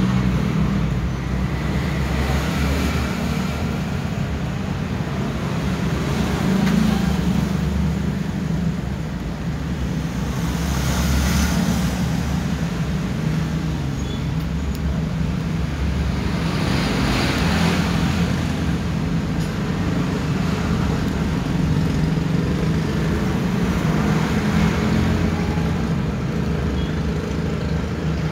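Road traffic noise: a steady low engine rumble that swells twice as louder vehicles pass.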